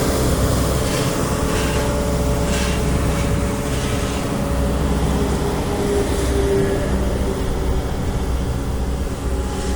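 Road roller's diesel engine running steadily: a low rumble with a faint steady hum above it.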